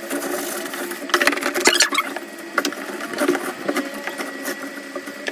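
Cloth rubbing over a plastic drawer organizer, giving squeaky rubbing strokes, with light clicks and knocks from the plastic drawers and frame being handled.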